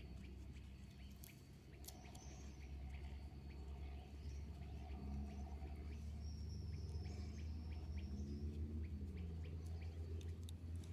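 Faint outdoor background: a steady low rumble with a few thin, high bird chirps, and light clicks and rustles as nylon rope is pulled and wrapped around wooden sticks.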